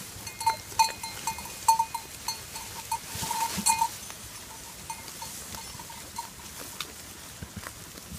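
Small bells on a flock of sheep clinking irregularly as the animals move and graze. The clinking is busiest in the first four seconds and thins out after that.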